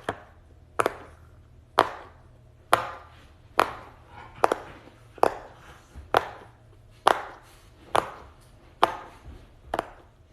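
A series of about a dozen sharp taps or clacks at an even pace of roughly one a second, each followed by a short ringing tail.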